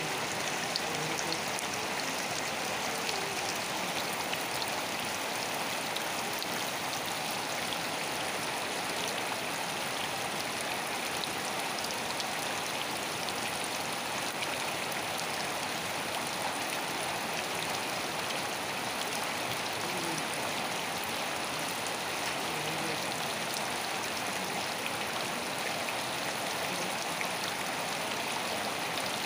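Steady rain falling, an even hiss with scattered patter of individual drops.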